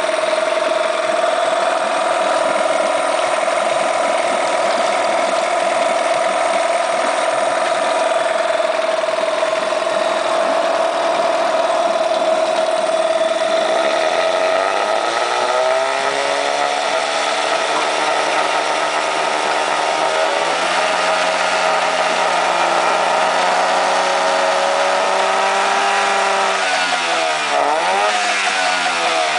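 Yamaha 9.9 hp outboard motor running with its propeller churning water in a test tank. The engine holds a steady speed for about half the time. Then its pitch drops and wavers at a lower speed, and near the end it dips briefly and comes back up.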